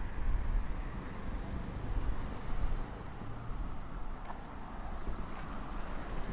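Street traffic: cars passing on a city road, a steady rush of engine and tyre noise.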